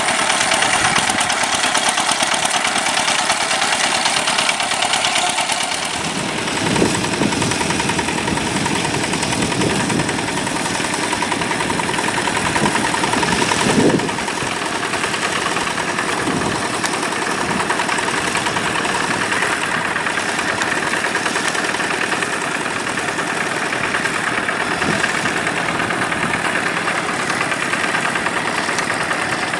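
Yanmar diesel engine of a rice-paddy tractor running steadily while working, with a few brief swells in its sound.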